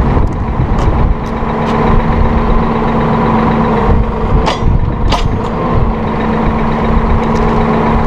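Massey Ferguson 4610M tractor's diesel engine running while its hydraulics close the arms of a three-point-mounted bale unroller. A steady tone fades out about four seconds in, and two sharp clicks come about half a second apart soon after.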